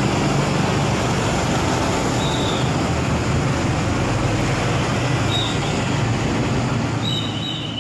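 Diesel bus engine running close by, a steady heavy rumble mixed with road traffic noise, with a couple of brief high squeaks; the sound begins to fade near the end.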